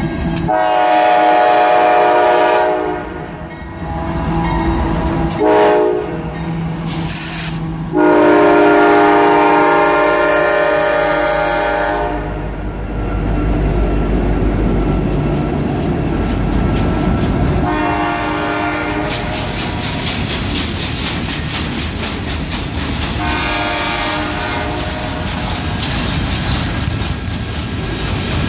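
Horn of a GE AC44CW diesel locomotive sounding a long blast, a short one, then a longer one. Then the deep rumble of the lead units as they pass close by. After that, steel wheels click over the rail joints as loaded flatcars roll past, while the horn sounds twice more, fainter.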